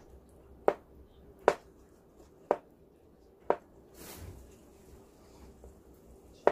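Kitchen knife slicing an avocado half, the blade knocking on a plastic cutting board four times about a second apart, followed by a short soft scrape.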